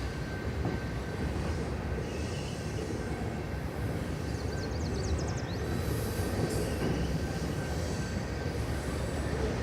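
CN freight train rolling past on the rails: a steady rumble of cars on track, with a faint, thin high squeal from the wheels.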